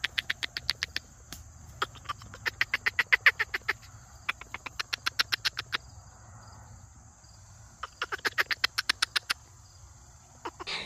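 Red squirrel chattering: four bursts of rapid, harsh pulses, about nine a second, each burst a second or so long with pauses between.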